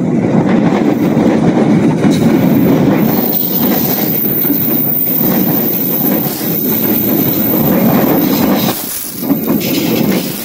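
Coaches of the Taksaka passenger train rolling past close by: a loud, steady rumble of wheels on the rails with some clickety-clack, dipping briefly about nine seconds in.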